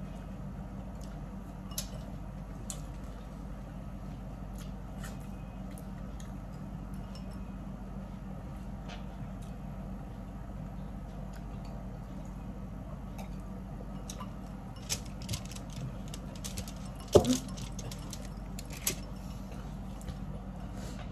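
Eating sounds at a seafood meal: scattered small clicks and taps of shells and utensils over a steady low hum, with a few louder clatters about four seconds before the end.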